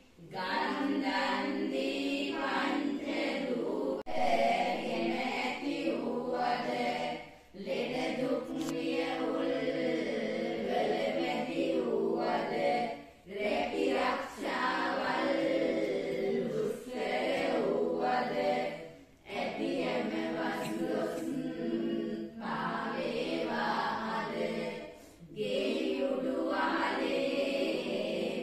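A group of women chanting devotional verses together in unison, in long sung phrases broken by short pauses for breath every few seconds.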